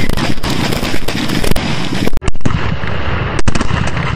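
A large bunch of firecrackers going off together in a rapid, unbroken string of loud bangs and crackles. The sound briefly cuts out about two seconds in.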